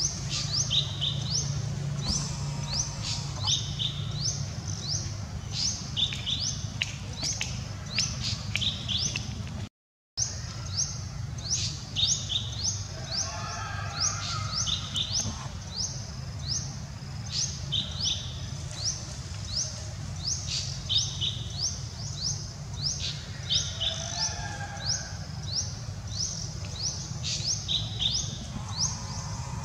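Forest birds chirping, short high chirps repeating several times a second, with a few lower calls mixed in, over a low steady hum. The sound cuts out completely for a moment about ten seconds in.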